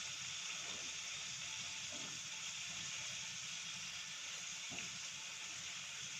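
Food frying in hot oil in a pan, a steady sizzle with a few faint soft ticks.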